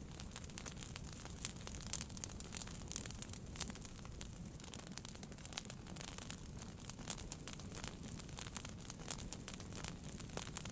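Wood fire burning in a fireplace: steady crackling with frequent small sharp pops over a low rumble of the flames.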